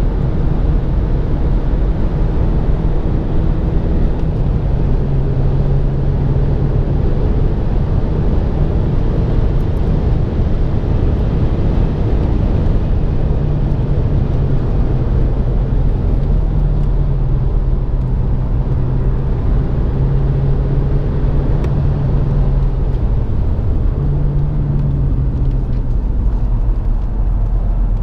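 Inside the cabin of a BMW 116i F20 accelerating at speed: its engine drones steadily under load, mixed with constant wind and tyre noise.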